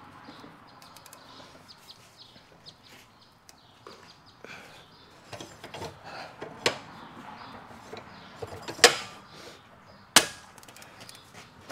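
Metal tools knocking and clanking on a tow truck's hydraulic cylinder clamped in a pipe vise. Scattered light clicks and knocks, then three sharp metal bangs in the second half, the loudest about three-quarters of the way through.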